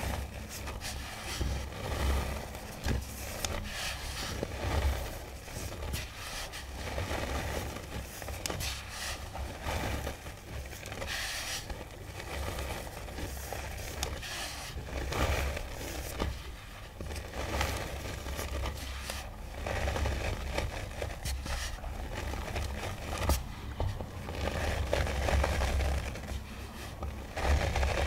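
Dry, powdery iron oxide pigment and chalk being worked by hand, giving an irregular scraping and crackling with a few louder spells.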